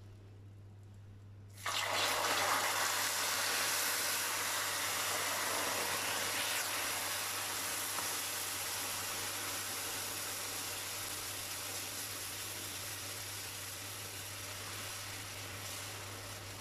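Milk poured into hot caramelized sugar in a frying pan: a sudden loud hiss and rush of bubbling about a second and a half in, which slowly dies down as the caramel sauce boils up.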